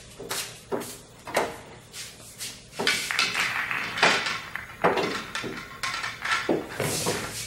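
Pool balls clacking and knocking against each other and the table in an irregular series of sharp clacks, as the balls are gathered and set into the rack.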